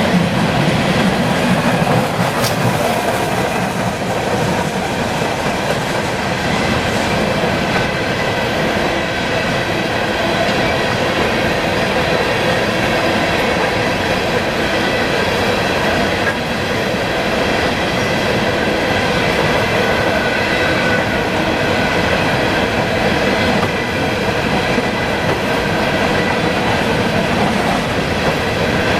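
Freight train cars rolling past, with a steady rumble and clatter of steel wheels on the rails and a faint thin squeal from the wheels.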